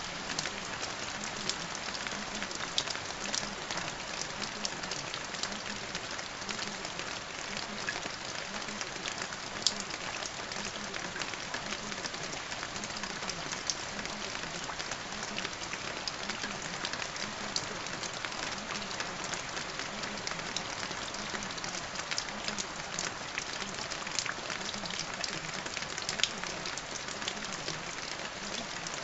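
Steady rain falling, an even wash of rain noise with many sharp individual drop taps scattered through it.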